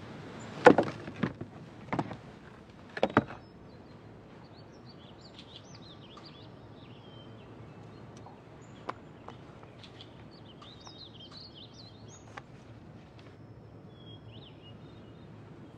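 An ornate box set down on rock and its lid handled: a few short knocks in the first three seconds or so. Then faint bird chirps over quiet outdoor ambience.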